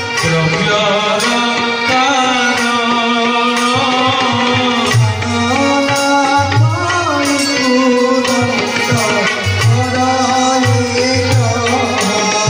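Devotional bhajan music playing: a melody that slides in pitch over low drum strokes.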